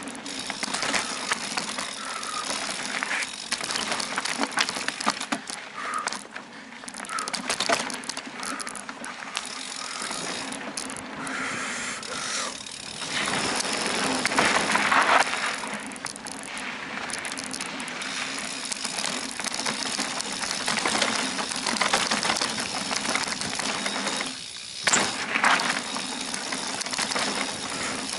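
Bicycle rolling fast over a dirt and gravel forest trail: tyre noise on the dirt with constant rattling and clicking from the bike as it bounces over bumps.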